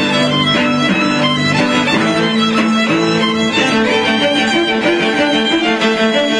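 Violin and cello playing a duet: long held low notes that change every second or so, under a higher violin line.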